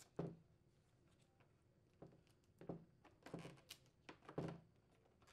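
A few short, faint rustles and light taps of tape being peeled back and wire leads being pulled out of a plastic channel on a refrigerator ice maker cover.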